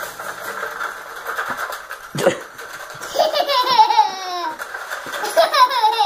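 A toddler's high-pitched belly laughs and giggles, starting about three seconds in and again near the end. Underneath, a self-destructing washing machine rattles through a laptop's small speakers, with a crash about two seconds in as it falls apart.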